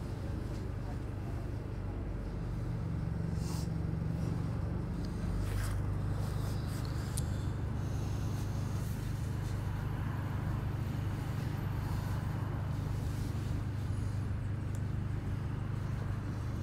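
Steady low drone of an MCV Evoseti double-decker bus heard from the upper deck, with a few light rattles. The hum rises and grows louder about five seconds in as the bus moves forward in slow traffic.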